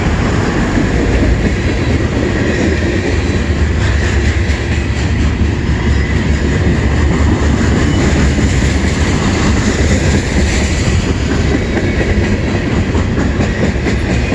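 Cars of a long mixed freight train (autoracks, covered hoppers and lumber-loaded flatcars) rolling past, their steel wheels on the rails making a steady, loud rolling noise.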